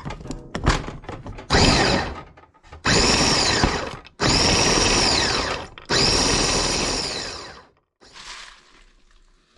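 Small electric food processor whizzing walnuts in four short pulses, the motor's whine rising as each pulse spins up and falling as it stops. A few clicks come just before the first pulse.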